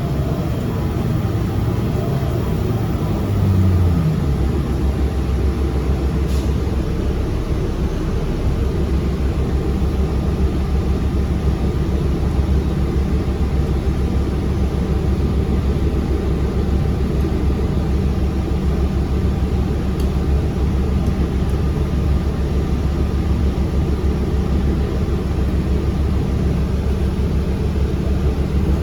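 Fairfax Connector transit bus running, heard from inside the passenger cabin: a steady low engine drone with road noise. The engine note rises over the first few seconds, then holds steady.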